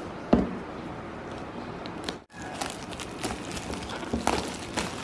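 Clear plastic shrink-wrap crinkling and crackling in many small clicks as hands peel it off a plastic instant-noodle bowl, after a single sharp knock of the handled plastic container near the start.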